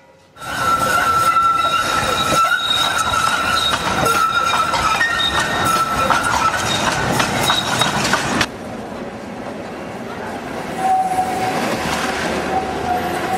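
Tram running on rails, clicking and rattling over the track with a steady high-pitched tone for the first eight seconds or so. The sound then drops to a quieter rolling noise, and a lower steady tone comes in near the end.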